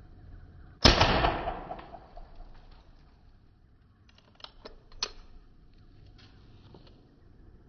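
A handgun fired once about a second in: a sharp crack that rings away over about a second. A few light clicks follow about three and a half seconds later.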